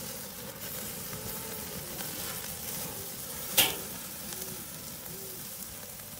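Thick bone-in tomahawk beef steak sizzling steadily on the grate of a charcoal kettle grill over very hot coals, the sound of its crust forming, with one sharp pop a little past halfway.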